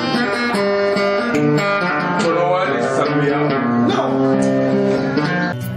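Acoustic guitar being played, plucked notes and chords ringing one after another.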